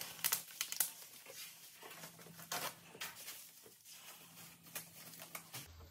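Plastic packaging bag crinkling and rustling as it is handled and opened, with irregular small crackles, busiest in the first second.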